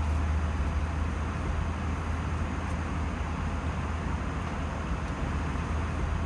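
Steady cabin noise inside an Airbus A320 airliner: an even low rumble from the engines with a hiss over it.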